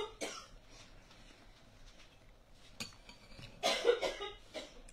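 A woman coughing in short, rough fits, once at the start and again more strongly about four seconds in. She is choking after juice went down the wrong pipe.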